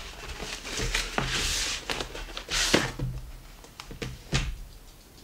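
A cardboard shipping box being opened and handled: scraping and rustling of cardboard as the flaps are pulled back and a product box slides out, with knocks against a wooden table and a louder knock near the end.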